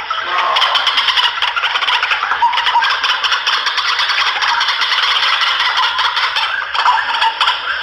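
White-breasted waterhens calling without a break: a dense, rapid chorus of harsh, croaking calls. It is a lure-call recording played to draw the birds in.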